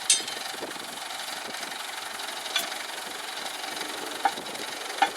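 Engine of an ACE 14XW Hydra crane running steadily, with a few short, sharp high-pitched clinks over it.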